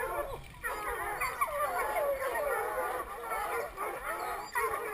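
A pack of bear hounds baying and howling together, many dogs calling over one another without a break, the sound of hounds on a bear.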